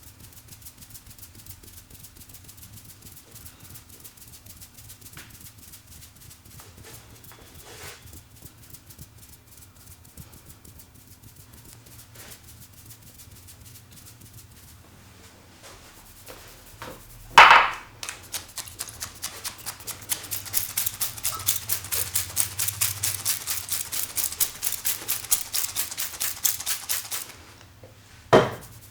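Hands working a head massage. Faint rubbing over the scalp runs for the first half. A little past halfway comes a sharp, loud slap, then a fast run of brisk, hissing strokes over the hair, several a second. Near the end there is another sharp slap.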